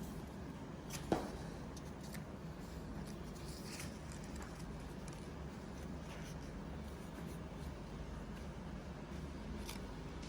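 Faint rustling and creasing of A4 paper being folded by hand, with one sharp tap about a second in, over a steady low hum.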